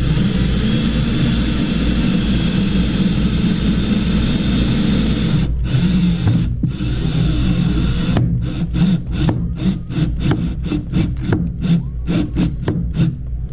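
Power drill driving mounting screws, running steadily for about five seconds, then stopping and starting in quick short bursts as the trigger is pulsed to snug the screws down.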